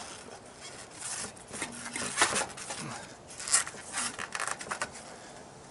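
A deflated knobbly bicycle tyre rubbing and scraping against the rim-brake pads as it is squeezed through them, in a few short bursts of handling noise.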